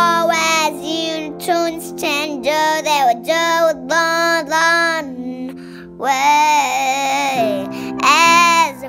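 A young girl singing a song over steady musical accompaniment, holding one long note about six seconds in.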